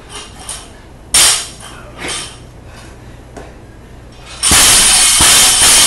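Barbell loaded with bumper plates dropped from overhead onto a rubber-matted lifting platform: a loud crash about four and a half seconds in, with the bar bouncing and the plates rattling for about two seconds. Shorter knocks and clanks of the bar come earlier, about a second and two seconds in.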